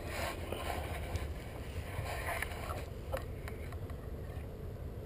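Low wind rumble on the microphone with soft rustling of grass and clothing as the hunter shifts position, and a few faint clicks about three seconds in.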